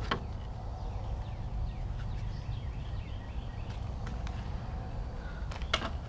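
Wind rumbling on the microphone, with faint bird chirps and two sharp clicks, one at the start and one near the end.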